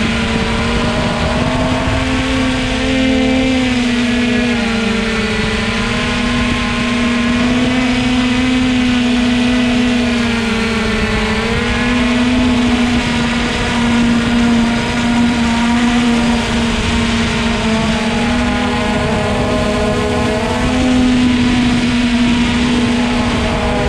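Electric motors and propellers of a radio-controlled aircraft carrying a GoPro, humming steadily and loudly, the pitch dipping slightly now and then as the throttle shifts.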